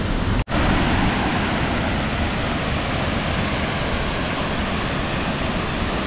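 Waterfall water rushing steadily, broken by a split-second gap about half a second in.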